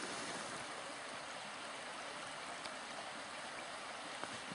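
Steady rushing background noise, even and unchanging, with a faint click about four seconds in.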